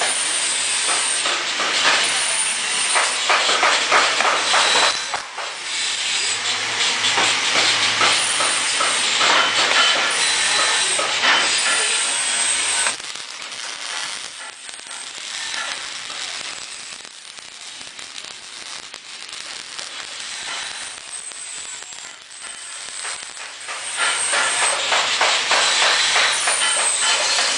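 Welding arc hissing and crackling. It runs loud, eases off to a quieter stretch about halfway through, then picks up again near the end.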